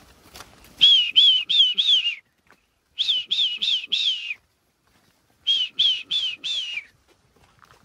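A herder whistling to drive cattle along: three runs of four short whistles, each note rising then falling in pitch, with short pauses between the runs.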